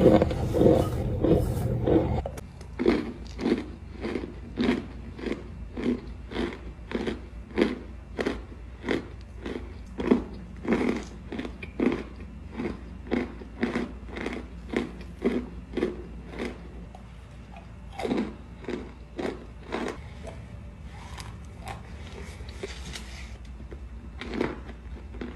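Crunchy food being bitten and chewed close to the microphone: a steady run of crisp crunches, roughly one or two a second, thinning out after about twenty seconds. A louder low-pitched sound fills the first two seconds.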